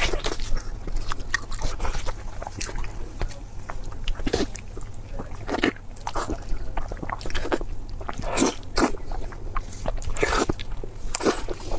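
Close-miked eating: steady chewing with wet mouth clicks, broken by about half a dozen louder crunchy bites.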